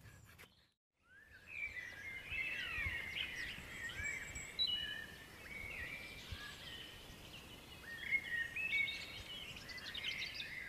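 Several songbirds singing together, with many quick overlapping chirps and whistled phrases, starting about a second in after a brief silence.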